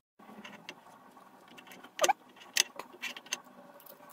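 A hex key clicking against small screws and metal parts as the extruder assembly is unscrewed and handled. The clicks are faint and irregular, a few of them sharper, with a brief squeak about two seconds in.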